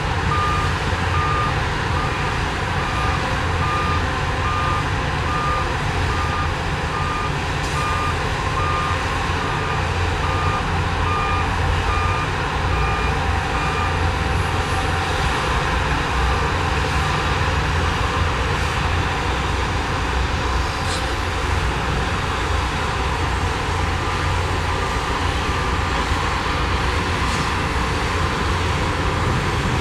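Heavy diesel earthmoving machines running with a steady low rumble, while a reversing alarm beeps steadily at about one beep a second. The beeping is clear at first and grows fainter after about fourteen seconds.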